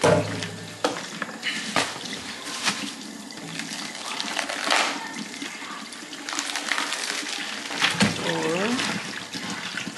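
Water running from a tap into a sink, with scattered knocks and clatter of things being handled.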